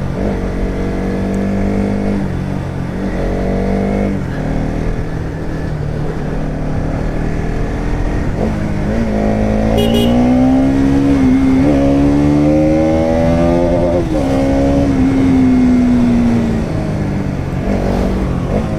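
Bajaj Pulsar NS200's single-cylinder engine riding along. It runs at a steady pitch early on. About eight and a half seconds in it revs up, holds high for several seconds, then drops back.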